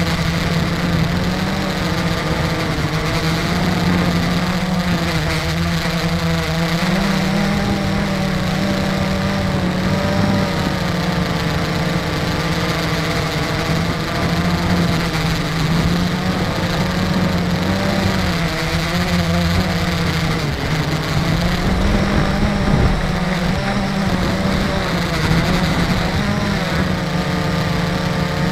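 Multirotor drone's electric motors and propellers humming steadily from on board, the pitch wavering up and down as the craft holds and shifts position.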